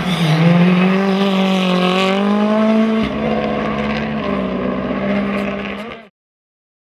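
Ford Fiesta rally car's engine running under load at a fairly steady pitch that creeps up slightly, its tone changing about three seconds in, then cutting off suddenly near the end.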